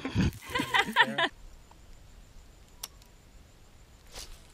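A person's brief, excited vocal outburst with a pitch that swoops up and down, lasting about the first second. It gives way to a low, steady outdoor background with two faint clicks.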